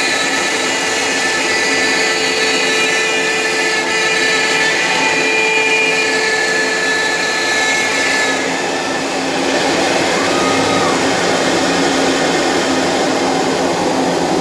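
CNC router running and cutting hardwood: a steady rushing machine noise with the spindle's high whine on top. The whine changes pitch and level a few times, most clearly about eight seconds in.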